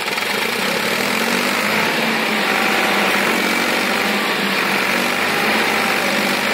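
HMT 3522 tractor's diesel engine running steadily as the tractor, front wheels lifted, works against a bank it cannot climb.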